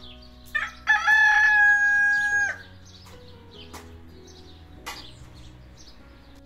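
A rooster crowing once, about two seconds long: a short rising start, then a long held note that cuts off sharply. A couple of faint clicks follow.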